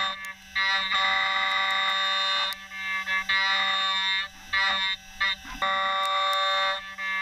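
End mill on a Hermle five-axis machining centre cutting metal under coolant: a steady high-pitched whine with a stack of overtones that starts and stops again and again, in stretches of about half a second to two seconds, as the cutter goes into and out of the material.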